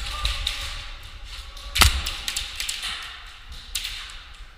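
Airsoft pistol fire during a game: one loud, sharp shot a little under two seconds in, among scattered lighter taps and clicks.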